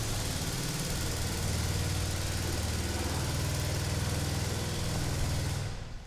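Undersized engine that powers the silo doors' hydraulic system running steadily with a low hum and hiss. It cuts off abruptly just before the end.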